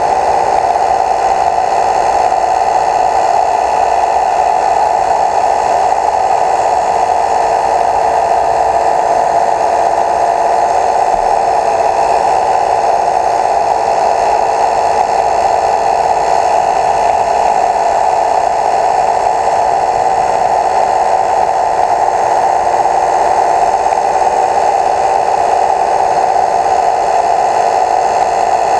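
Steady, unbroken whir of a small motor, with a constant pitch.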